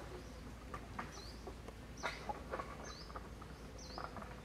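A woven plastic sack rustling and crinkling in short, scattered crackles as a young monkey moves about inside it. Several short, high bird chirps come through over it.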